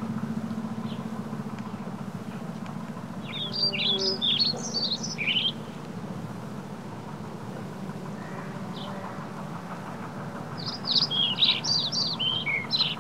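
A songbird singing two short phrases of quick, high chirping notes a few seconds apart, over a steady low hum.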